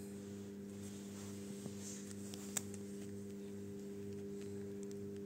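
Steady low hum made of several constant tones, with a faint regular pulsing underneath it and a single soft click about two and a half seconds in.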